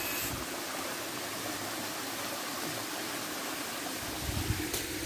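Steady rush of shallow stream water around a person wading through it, with a few low splashes about four seconds in.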